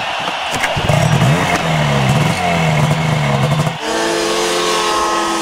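Turbocharged Arctic Cat snowmobile engine revving, its pitch rising and falling. A little under four seconds in, it cuts to an engine held high at a steady, slowly climbing pitch.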